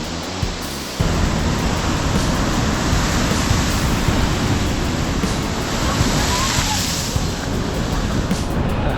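Heavy storm surf, a loud continuous roar of breaking waves with wind rumbling on the microphone, rising sharply about a second in. Background music plays faintly underneath.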